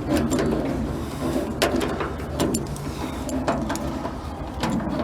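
Metal dash parts being worked into place by hand: scattered clicks and knocks with scraping, over a low steady hum.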